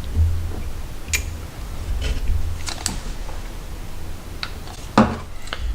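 Scattered small clicks and taps over a low handling rumble: a guided knife-sharpening system being handled while the blade angle is checked.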